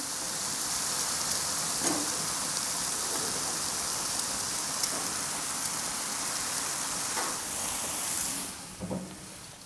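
Bratwursts sizzling on a hot gas grill: a steady hiss of frying fat that drops away about a second before the end.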